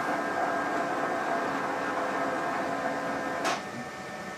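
Zebra ZXP Series 8 card printer feeding a moistened cleaning card through its rollers: a steady motor whir with a sharp click about three and a half seconds in, after which the running goes quieter.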